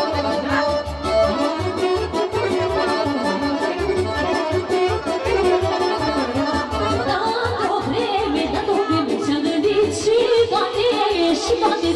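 Romanian folk dance music played by a band, with an accordion leading over a steady bass beat.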